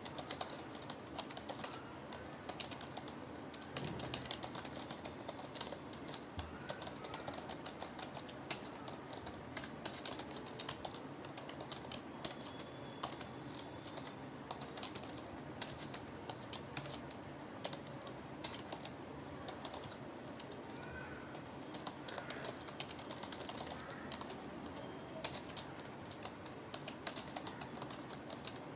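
Computer keyboard being typed on steadily: continuous irregular key clicks, with a few louder strokes standing out.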